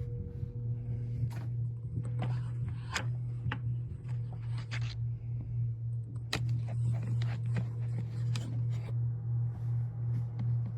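Vacuum cleaner running out of sight, heard muffled as a steady low hum, with scattered light clicks and knocks over it.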